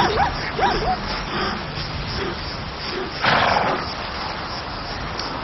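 Lion cubs giving short, wavering mews in the first second, then a single breathy huff about three seconds in, over a steady outdoor background hiss.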